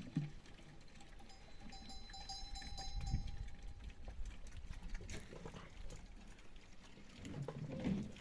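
Farm animals calling, with a thin steady tone held for about three seconds from about a second in.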